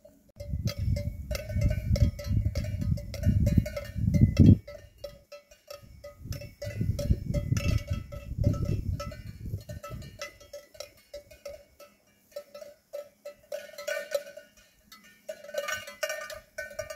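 Bells on grazing cattle clanking irregularly, many strokes overlapping at several pitches. Through roughly the first ten seconds a loud low rumble of wind on the microphone lies under them, then dies away and the bells are heard alone.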